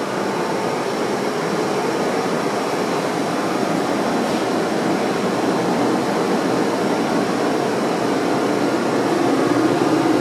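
DMG CNC lathe's motor running with the machine's door open: a steady mechanical whir, its low hum growing a little louder near the end.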